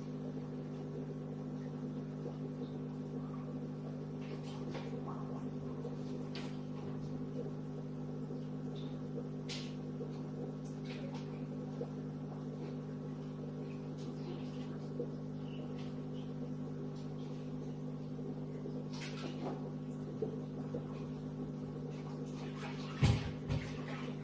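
Aquarium air pump humming steadily as it drives a sponge filter, with occasional faint clicks and a couple of louder thumps near the end.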